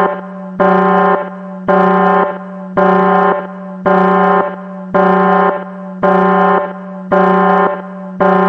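Electronic alarm buzzer sounding in regular pulses, about one a second, each lasting a little over half a second, over a steady low hum.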